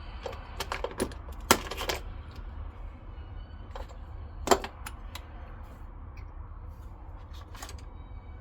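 Metal hand tools clinking and clattering: a run of sharp clinks in the first two seconds, the loudest about a second and a half in, another about four and a half seconds in and a few fainter ticks after, over a steady low hum.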